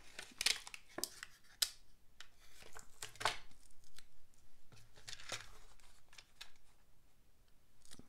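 Plastic blister pack of self-adhesive Velcro dots being handled and a dot peeled free: a series of short crinkles, rustles and tearing sounds with light taps, a second or two apart.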